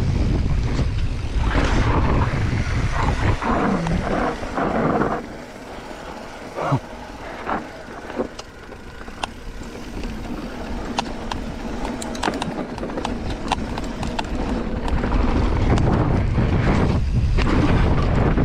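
Mountain bike riding fast down a dirt singletrack. Wind buffets the microphone, the tyres run on dirt, and the bike rattles and knocks over the bumps. The rumble drops for a few seconds in the middle, leaving scattered sharp clicks and knocks, then comes back loud near the end.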